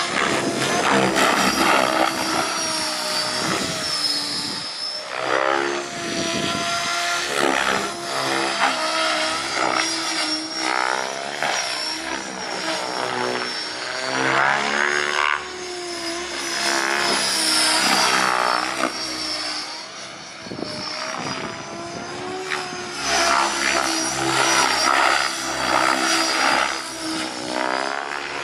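Electric LOGO 700 XXTreme RC helicopter flying aerobatics: the whir of its spinning rotors runs continuously, its pitch and loudness rising and falling as the helicopter swoops and changes load.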